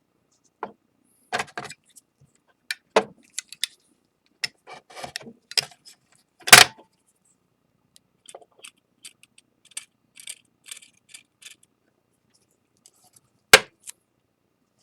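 Irregular clicks, taps and light clatters from small hard objects being handled and set down on a work surface, with two sharper knocks, one about six and a half seconds in and one near the end.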